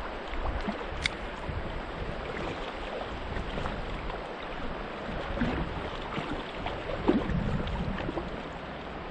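Shallow river current flowing and gurgling over rocks, with wind rumbling on the microphone.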